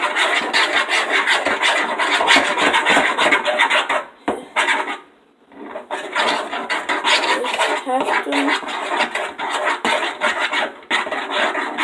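A stirring utensil scraping and rubbing against a container in quick, continuous strokes as glue and laundry detergent are mixed into slime, with a brief pause about five seconds in.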